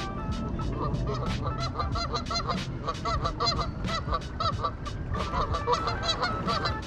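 Geese honking repeatedly, several short calls a second.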